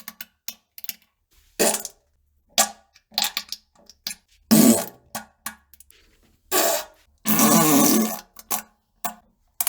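A string of farts, one after another: several quick short ones and a few longer, louder ones, the longest lasting nearly a second late on, with dead silence between them.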